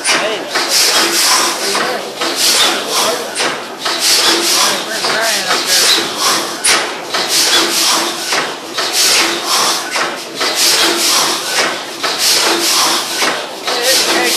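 600 hp Snow natural-gas compressor engine running, its big flywheel turning: a steady, regular chuffing and clattering of the engine and its valve gear, with a faint steady hum beneath.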